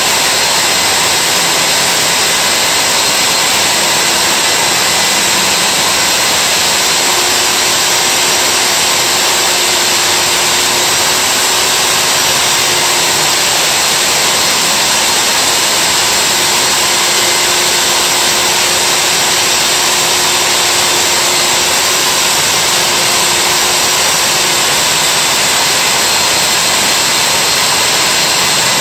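Milwaukee wall-mounted core drill running steadily as it bores into the wall: a loud, even motor noise that does not change.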